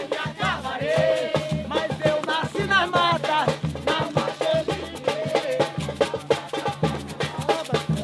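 Samba music: a voice singing over drums and percussion, with a steady beat.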